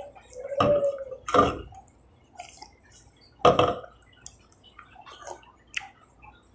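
A person sipping and swallowing a drink: wet mouth sounds and gulps, loudest about a second and a half in and again about three and a half seconds in.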